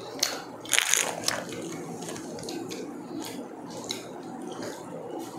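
Close-up eating and drinking sounds: sipping from plastic cups of dark soft drink, with chewing and a scattered run of short, sharp clicks and crunches.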